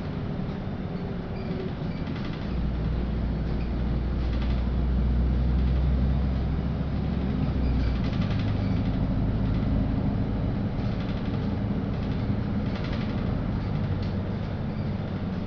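Cabin noise inside a LiAZ-5292.65 city bus on the move: a steady engine and road drone. A deeper engine note swells from about two seconds in and drops back about five seconds later. Faint rattles come now and then.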